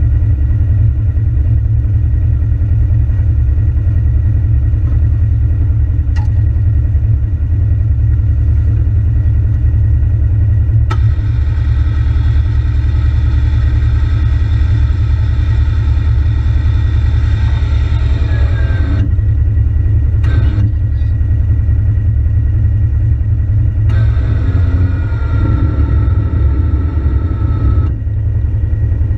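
Side-by-side UTV engine running with a steady low rumble, heard from inside the cab. Twice a higher whine starts with a click, runs for several seconds with its pitch sliding down, and then cuts off.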